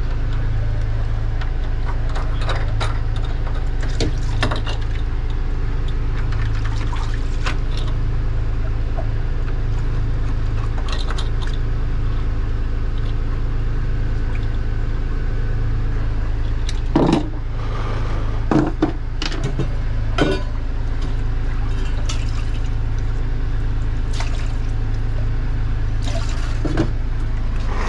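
Boat's inboard engine running steadily below deck, with watery sloshing and sharp knocks and clicks as the speed log paddlewheel transducer is pushed back into its through-hull fitting.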